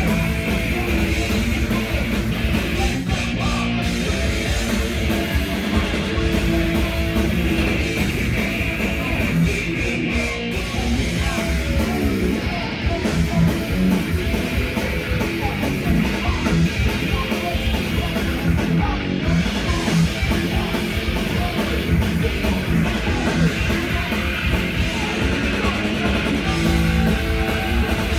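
A crossover thrash band playing live, with distorted electric guitars and drums, loud and steady throughout.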